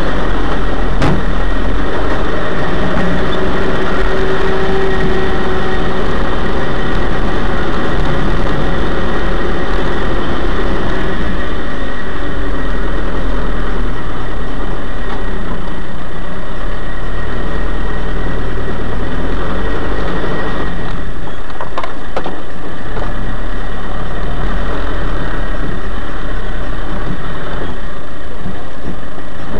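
An off-road 4x4 driving over rough dirt tracks, heard from inside the cabin: its engine runs with a loud, constant rumble, mixed with a dense clatter from the vehicle bouncing over the ground.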